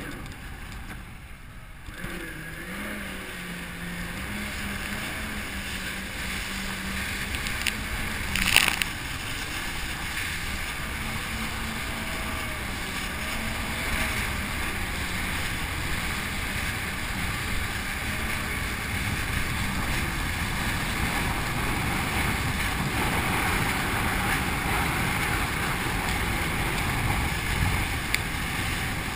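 Motorboat engine running steadily and slowly picking up speed, with water rushing along the hull. A short loud burst comes about eight seconds in.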